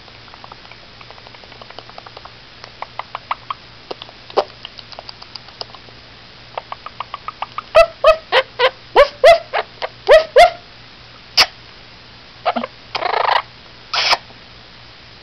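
Blue-crowned conure mimicking a dog: soft rapid clicking for the first several seconds, then a run of about eight loud dog-like barks at roughly three a second, followed by a couple of harsh squawks near the end.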